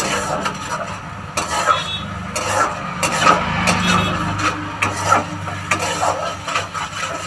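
A slotted spatula scrapes and stirs a thick ginger-garlic and coriander paste around a black kadai in repeated strokes, while the masala sizzles as it is sautéed down.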